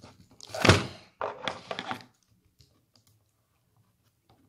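Small cardboard box being handled and knocked on a tabletop while it is forced open: one loud thunk just under a second in, followed by about a second of light clicks and rustles of packaging.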